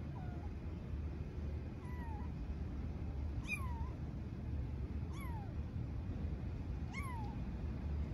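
Young kitten meowing five times, short calls about every one and a half to two seconds, each rising then falling in pitch, the first one fainter: calling for its mother cat. A steady low rumble runs underneath.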